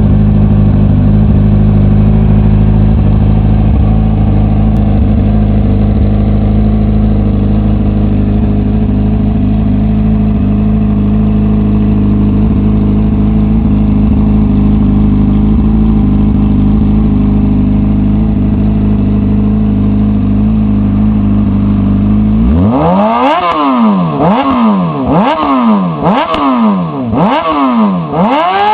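Honda CBR600RR inline-four engine through a CS Racing aftermarket exhaust, idling steadily, then given a quick series of about six throttle blips near the end, each rev rising and falling back sharply.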